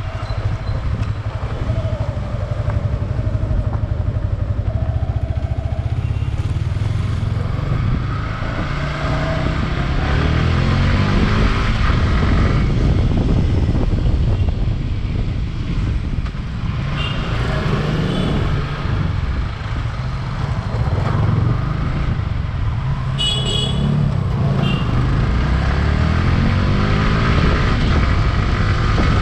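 Yamaha R15 V3's 155 cc single-cylinder engine running under way, its pitch rising several times as it accelerates and dropping back in between, with a steady rush of road and wind noise.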